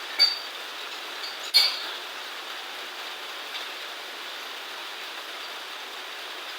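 Two sharp clinks with a short ring, about a quarter second in and again about a second and a half in, over a steady hiss.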